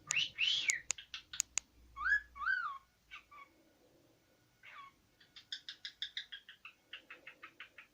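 Cockatiel whistling: a few arching whistled notes mixed with sharp clicks, then after a short pause a fast run of short repeated chirping notes, about six a second.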